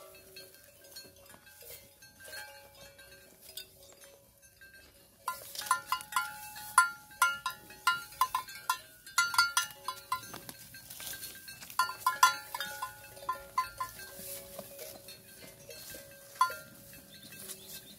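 Bells on feeding cattle clinking: a quiet start, then from about five seconds in a dense run of sharp clinks, each with a short ring, easing off after about fourteen seconds, with one more near the end.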